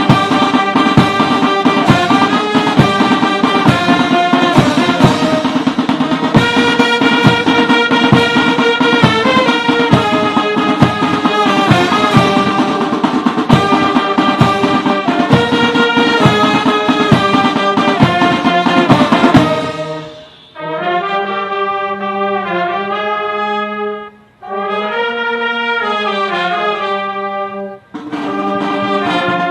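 Instrumental band music led by brass instruments over a steady drum beat. The drums drop out about twenty seconds in, leaving three held brass phrases with short breaks between them.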